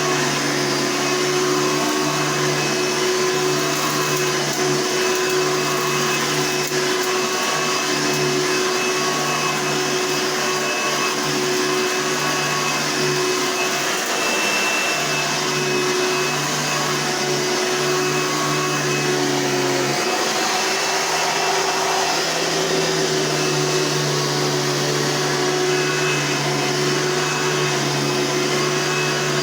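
Hoover upright vacuum cleaner with a top-fill bag system, a model from about 1988–1990, running steadily: a constant motor hum over the rush of air. The low hum shifts slightly in pitch about twenty seconds in.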